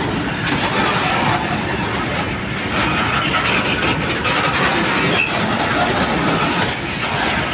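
Loaded coal hopper wagons of a freight train rolling past: a steady rumble and rattle of steel wheels on the rails, with a few sharper clacks, about two and five seconds in.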